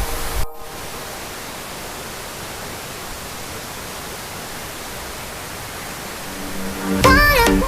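Steady, even rush of water falling at a waterfall. Background music cuts out about half a second in and comes back loudly near the end.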